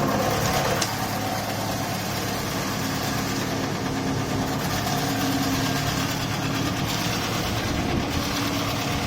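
Industrial wood shaving machine running: a steady mechanical drone with a hum underneath and a brief click about a second in.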